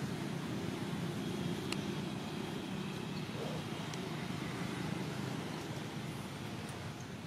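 Steady low background rumble, like distant traffic, with a few faint clicks.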